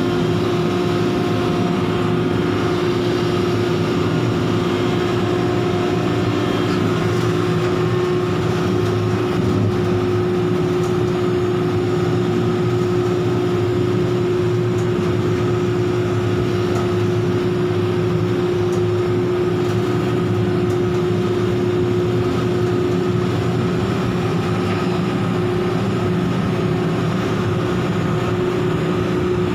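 Heavy machinery running steadily, a constant drone with a strong, unchanging hum.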